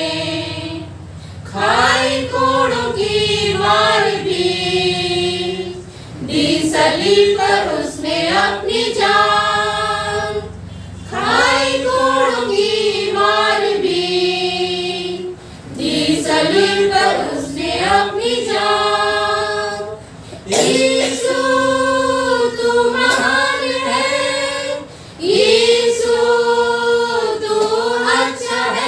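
A small women's choir singing a hymn together without accompaniment, in phrases of about four to five seconds with brief pauses for breath between them.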